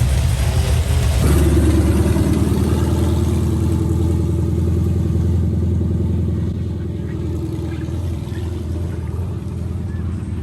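A car engine running steadily with a deep, pulsing rumble; it eases off a little about six and a half seconds in.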